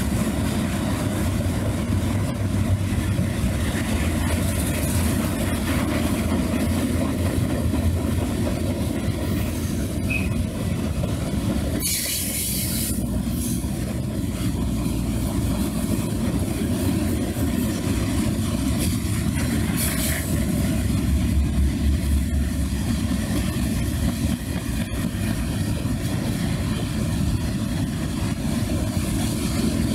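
Wisconsin & Southern freight cars rolling past: a steady low rumble of steel wheels on the rails, with a short high hiss about twelve seconds in and again around twenty seconds.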